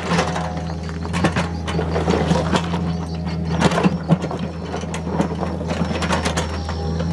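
Komatsu PC45 mini excavator's diesel engine running steadily under load, with frequent irregular clanks and scrapes as its steel bucket digs and pushes through broken rock and dirt.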